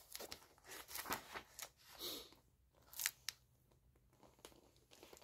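Faint rustles and soft taps of a hardcover book's paper pages being turned and handled: several short sounds, mostly in the first three seconds.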